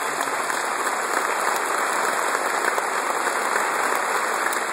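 Large seated audience applauding, a dense, steady clatter of many hands clapping.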